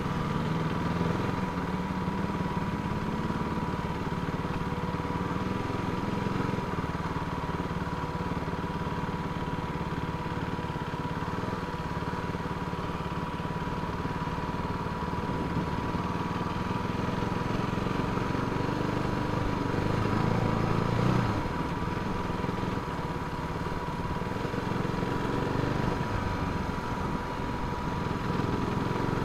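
Motorcycle engine running at low, fairly steady speed while riding a rough dirt track, with a slight rise in revs about two-thirds of the way through.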